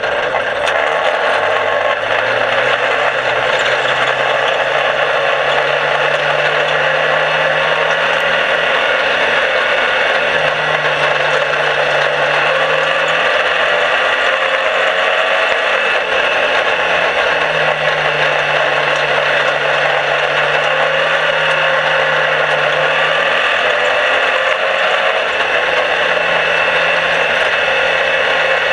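Small dirt-track race car's engine, heard from inside the cockpit: it revs up in the first couple of seconds as the car gets going, then runs at fairly steady revs with short dips as the throttle is eased. A loud, dense rushing of wind and mechanical noise covers it throughout.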